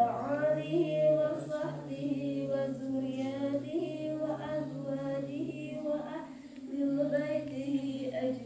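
A group of voices chanting a recitation together, with a woman's voice most prominent. The notes are long and drawn out, in phrases with brief breaths between them.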